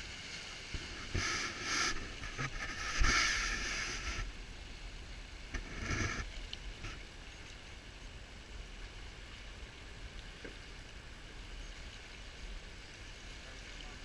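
River water rushing past a rowed boat running a rapid, with splashing surges about a second in and around six seconds, and a sharp knock about three seconds in, before it settles to a steady hiss of moving water.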